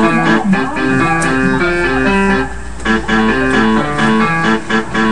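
Music played on an electronic keyboard: a quick melody of short, even notes stepping up and down over a lower line, in a plucked, guitar-like voice.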